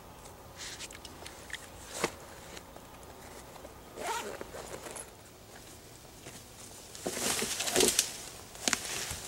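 Clothing and gear rustling close to the microphone, with a few small clicks and a sharp zipper-like rasp as gear is handled. Near the end come louder scratchy rustles of footsteps through leafy brush.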